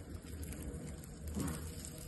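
Colourful gel water beads crushed in a hand-squeezed garlic press, wet squishing and crackling as the mush pushes out through the holes, with a louder squelch about one and a half seconds in.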